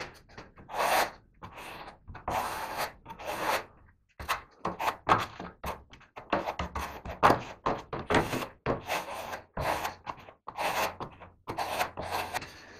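Steel plastering trowel scraped over glue-coated fiberglass wallcovering on a drywall window reveal in short repeated strokes, about two a second and quickening after a few seconds: the top coat of glue being skimmed over the fiberglass.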